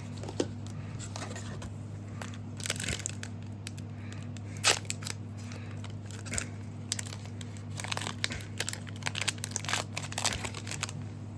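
A foil trading-card booster pack being torn open and its wrapper crinkled, in scattered bursts of crackling that come thickest in the second half, over a steady low hum.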